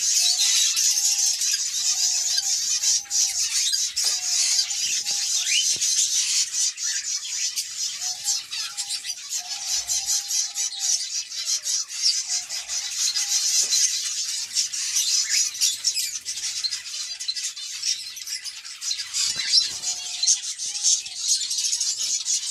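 Canaries bathing in a shallow water dish, splashing and fluttering their wings in the water. Under it runs a continuous high chirping and twittering of small birds, with short lower calls every second or two.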